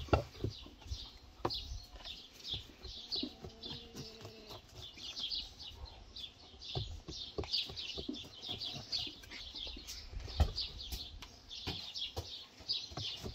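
A knife and fork cutting through a baked meat bread on a wooden board, with a few sharp knocks of the blade on the board, the loudest right at the start and about ten seconds in. Small birds chirp constantly, several short high chirps a second.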